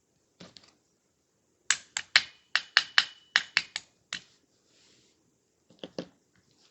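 Sharp metallic taps on a rifle trigger-group pin being driven into the lower receiver: a run of about ten quick strikes, roughly four a second, with a faint ring, and a few lighter clicks before and near the end.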